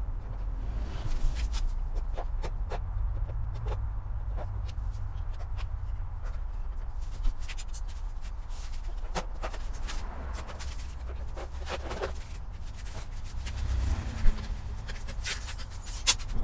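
Scattered light clicks and knocks of hands and tools working on a motorcycle's bolts and plastic body panels, over a steady low rumble.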